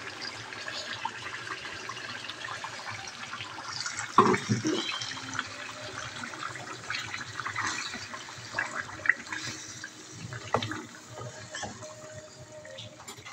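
Freshly poured wet tomato, green chilli and onion paste sizzling and bubbling in hot oil with chicken pieces in an aluminium karahi, with a few short scrapes of a spatula against the pan as it is stirred.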